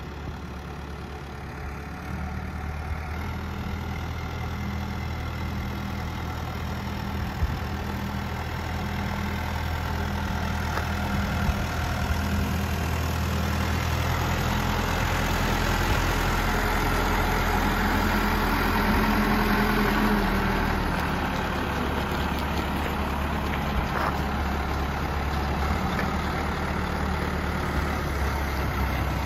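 Caterpillar 444E backhoe loader's four-cylinder diesel engine running steadily as the machine drives, growing louder as it comes closer and easing off slightly about two-thirds of the way through.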